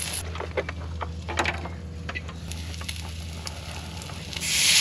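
Meatballs sizzling in a hot pan, with scattered pops and crackles over a low steady hum. Shortly before the end a loud, steady steam hiss starts up, as water meets the hot pan to steam the meatballs.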